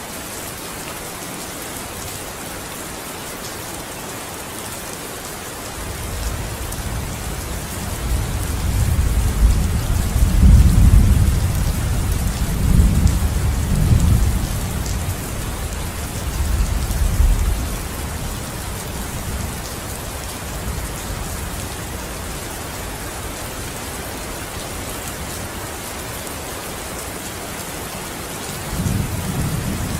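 Steady rain with a long rolling rumble of thunder that swells a few seconds in, peaks midway and dies away, and another low rumble beginning near the end.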